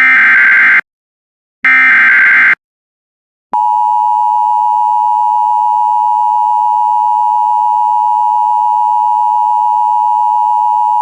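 Emergency Alert System signals: the last two of the three SAME header data bursts, each a buzzy digital warble lasting about a second with a short gap between them. About three and a half seconds in, the steady EAS two-tone attention signal (853 and 960 Hz) begins. Together they open an emergency alert, here a severe thunderstorm warning.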